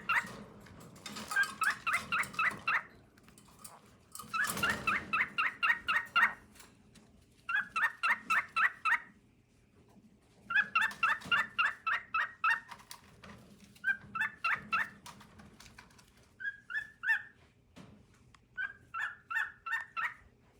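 Male cockatiel singing its courtship song: about seven phrases of quick, repeated chirping notes, each a second or two long, with short pauses between them.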